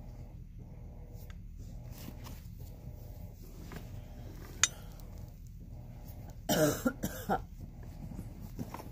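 A short cough about six and a half seconds in, over a low steady hum, with a single sharp tap a couple of seconds before it.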